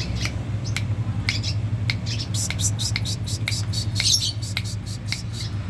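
A songbird giving rapid, sharp chirps and short squeaky notes in irregular bursts, thickest around the middle, over a steady low hum.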